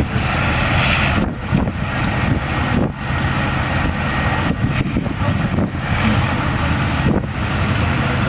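Steady low rumble of idling vehicle engines, with wind noise on the microphone.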